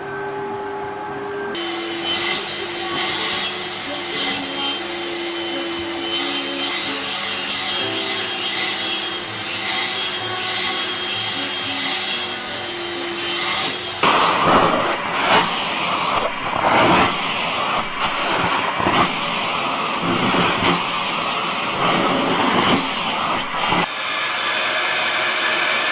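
Household vacuum cleaner motor running with a steady whine, heard across several clips that cut abruptly. About halfway through, a louder, rougher stretch with an uneven pulsing comes in and cuts off near the end.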